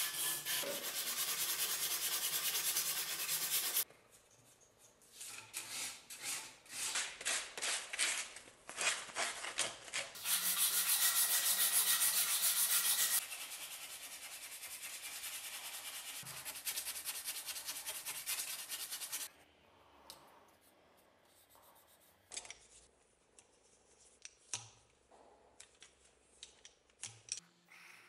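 Hand sanding on the cleaver in rapid back-and-forth rubbing strokes, in several separate bursts. The last third is much quieter, with only small clicks and taps.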